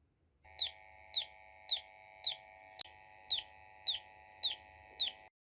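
Homemade electronic chick-sound circuit peeping through a small speaker: nine quick falling chirps, about two a second, over a faint steady electronic tone, cutting off abruptly near the end.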